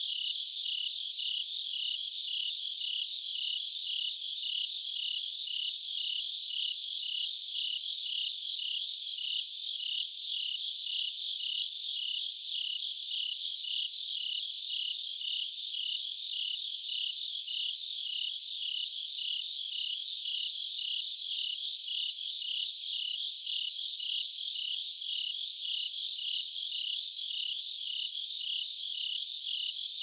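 Night chorus of autumn insects singing together: a steady, dense, high trilling with a lower chirp repeating at an even pace beneath it.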